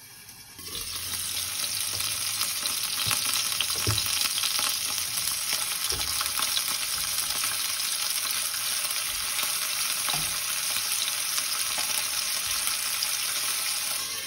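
Chicken pieces frying in oil in a nonstick pan, a loud steady sizzle. The sizzle jumps up about half a second in as the glass lid comes off, and drops again near the end as the lid goes back on. A few soft taps come from tongs turning the pieces.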